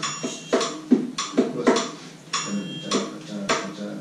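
A triangle struck in a quick syncopated rhythm, some strikes left to ring with a high metallic tone, mixed with sharper hand-drum hits from bongos.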